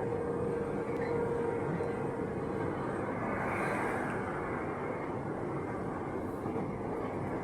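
Santiago Metro AS-02 train running at speed, a steady rumble of wheels and running gear heard from inside the car. A steady tone rides on it and fades out about two seconds in.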